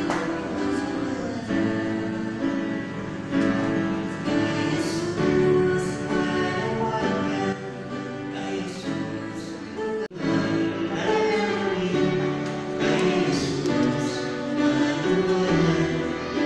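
A man and a woman singing a Tagalog gospel hymn as a duet into microphones, with guitar accompaniment. The sound cuts out for a split second about ten seconds in.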